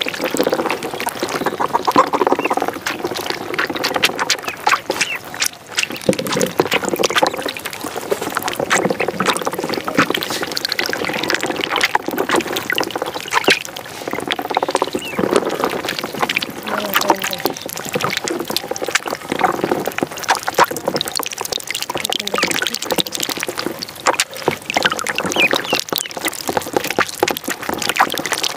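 A flock of ducklings peeping continuously, many short high calls overlapping, with light splashing as they paddle in shallow water.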